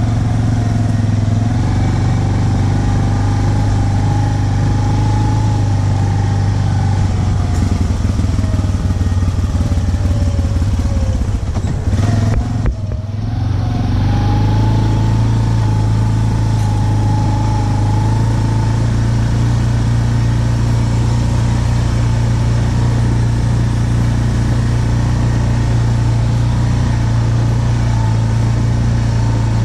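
Yamaha ATV engine running steadily while under way. About twelve seconds in the revs sag and the sound briefly drops, then the engine picks back up and runs on steadily.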